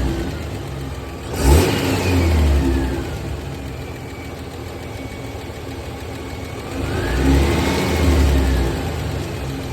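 Toyota 1FZ-FE straight-six engine idling and revved twice: a quick blip about a second and a half in, then a slower rise and fall near the end. It is the engine the owner is showing for a ticking noise.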